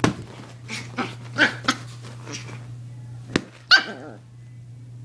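Small dog barking in a run of short bursts, with the loudest bark about three and a half seconds in, just after a sharp click.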